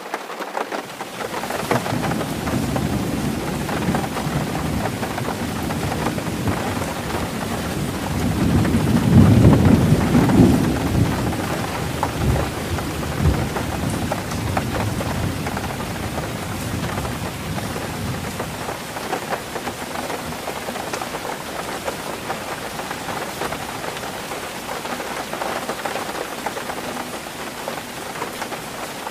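Heavy rain falling on a tin roof, a dense, steady patter of drops. A long roll of thunder builds under it from the start, is loudest about ten seconds in, and fades out by about eighteen seconds.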